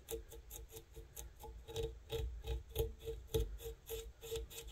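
Velcro dubbing brush raking through silver dubbing spun in a dubbing loop, in quick repeated strokes, teasing out the fibres.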